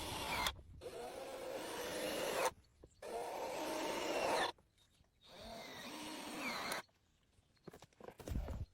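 A power tool running in three bursts of about two seconds each, each cutting off abruptly.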